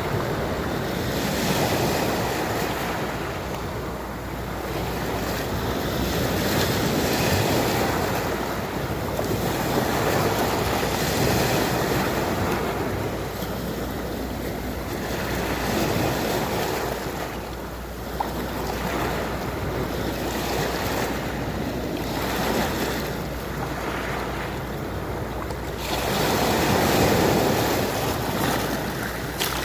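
Sea waves washing in and drawing back, a steady rush that swells and fades every few seconds.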